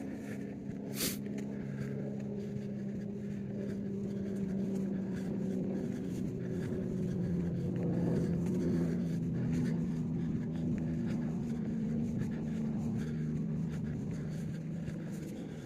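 A motor vehicle's engine running at low revs, a steady low hum that grows a little louder and shifts down in pitch about halfway through, with a single sharp click about a second in.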